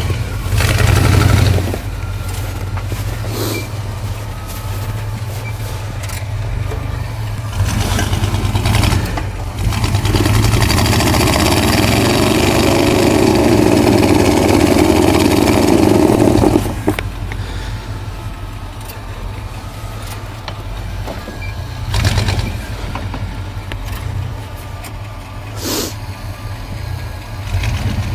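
Lifted pickup truck's engine running under load as it crawls over rocks, with a steady low rumble; about ten seconds in it is revved hard for some six seconds, then drops back abruptly. A few short knocks and bangs stand out here and there.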